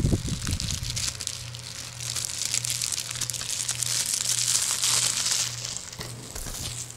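Plastic shrink wrap crinkling and crackling as it is peeled and crumpled off a DVD case, with a few handling knocks in the first second. A low steady hum runs underneath.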